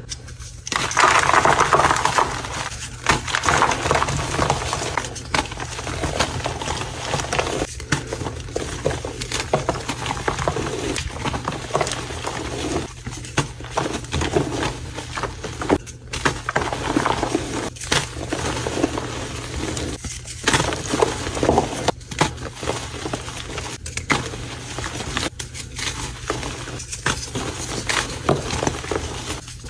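Concrete being mixed, a continuous gritty crackling and scraping churn, broken by brief dropouts every few seconds.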